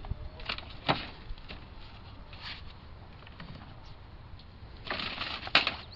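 A folding manual wheelchair being collapsed by hand: scattered clicks and knocks from the metal frame, with a louder rattling clatter about five seconds in.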